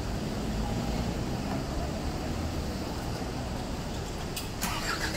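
Busy city street ambience: a steady low rumble of road traffic, with a few sharp clicks near the end.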